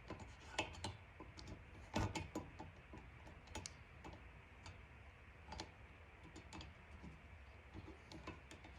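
Faint, irregular metallic clicks and ticks from the thread insert tool being turned by hand as a spark plug thread insert is threaded into the plug hole, down to its knurled section.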